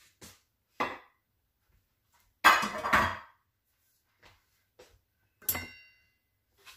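Metal pans and dishes being handled and set down: scattered knocks and clunks, the loudest a long clatter about two and a half seconds in, and near the end a sharp knock that rings briefly like struck metal.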